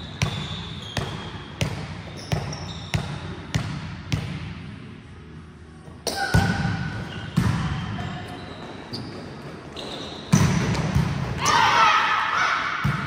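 A volleyball bounced on a hard court floor in a steady rhythm, about one and a half bounces a second, for the first four seconds. After a short lull come several sharp hits on the ball, and players shout near the end, echoing around the hall.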